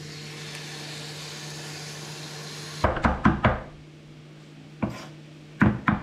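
Kitchen knife chopping garlic on a wooden cutting board: a quick run of knocks about three seconds in and a few more near the end, over a low steady hum. Before the chopping, a steady hiss that cuts off suddenly.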